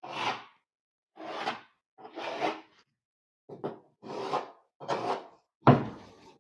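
A tool scratching along drywall in about eight short, separate strokes, as the outline of the patch piece is marked or scored around. A sharp knock near the end.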